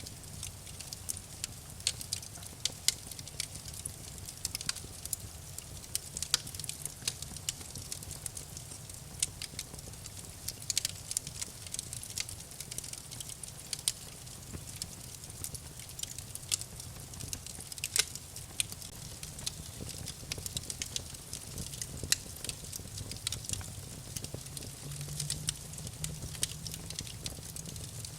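Wood burning in a campfire, crackling with frequent irregular sharp pops and snaps over a low steady rumble.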